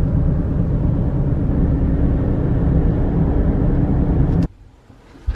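Road and engine noise inside a moving car, a steady low rumble that cuts off suddenly about four and a half seconds in.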